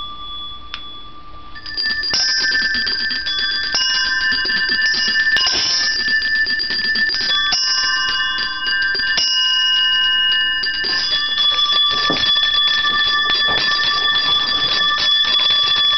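A set of coloured toy handbells, each pitched to a different note, rung by several people at once. A few single rings come first, then from about two seconds in the bells are shaken rapidly and together, a dense jangle of overlapping bell tones at several pitches.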